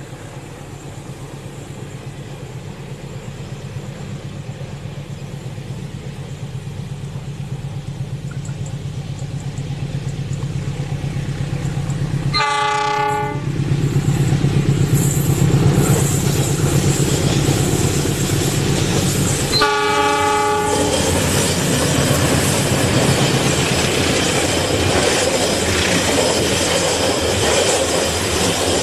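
Diesel locomotive hauling passenger coaches approaching, its engine hum growing steadily louder, and sounding its horn twice, each blast about a second long and about seven seconds apart. In the last part the coaches run past close by, with wheels clattering on the rails.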